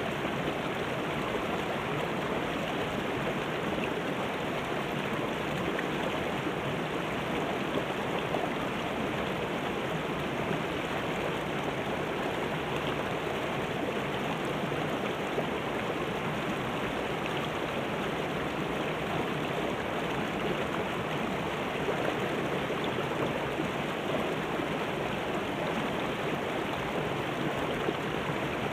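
Shallow rocky river running over and between boulders in small cascades and riffles: a steady rush of water with no change in level.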